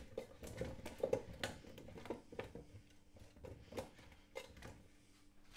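Potato chunks being turned over by hand in an air fryer's non-stick basket: irregular soft knocks and shuffling as the pieces tumble against each other and the basket.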